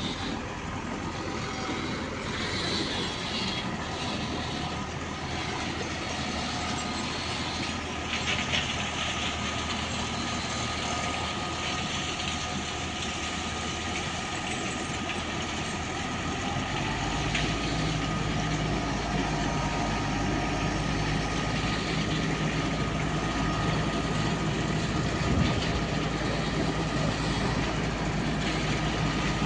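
Heavy vehicle engine running steadily, with a deeper low hum and a steady pitched drone coming in about 17 seconds in and holding, slightly louder.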